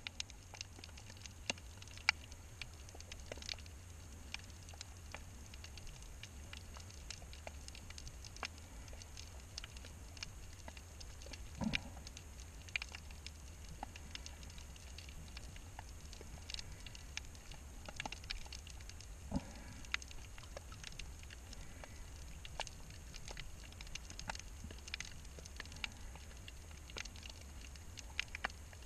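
Underwater ambience heard through a GoPro's waterproof housing: a continual irregular crackle of faint clicks over a low steady rumble, with two duller knocks near the middle.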